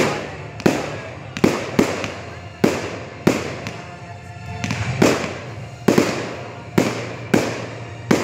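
Aerial firework shells bursting overhead: about eleven sharp bangs at uneven intervals, each trailing off in a fading echo.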